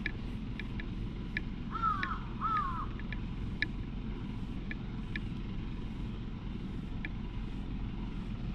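A crow cawing twice, about two seconds in, over a steady low rumble, with short high ticks scattered throughout.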